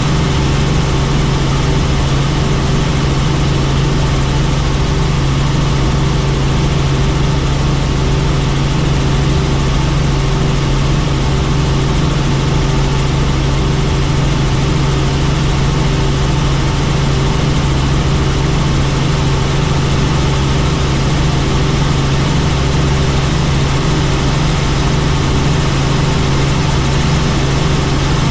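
Helicopter in flight: loud, steady engine and rotor noise with a strong low hum that does not change.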